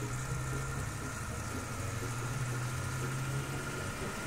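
Cartoon sound effect of a camper van's engine running steadily, a low even drone as the van drives along.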